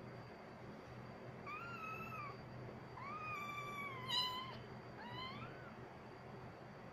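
Kitten mewing three times while its mother cat play-wrestles with it: high, drawn-out cries, the middle one the longest and loudest, the last one rising.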